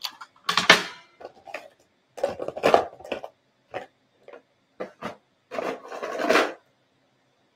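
A tube of dark brown watercolor paint being handled and paint worked in the palette: several short, irregular bursts of rubbing and scraping, with a few single clicks in between.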